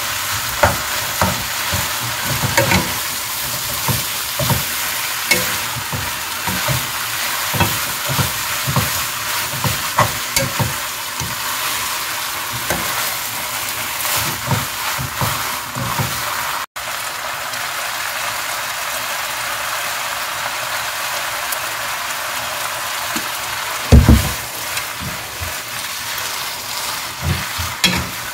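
Beef and soaked seaweed sizzling in a wok while a wooden spatula stirs them, knocking and scraping against the pan. The knocks are frequent in the first half and thin out later, with one loud thump about three quarters of the way through.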